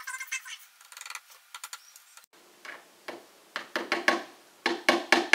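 Small hammer tapping little panel nails into the thin back sheet of a flat-pack bookcase. Light taps come first, then louder strikes in quick runs of several, about six a second, with the hollow box ringing under each blow.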